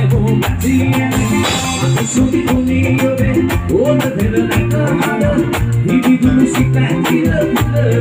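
Live band playing: a drum kit keeps a steady beat under bass and electric guitar.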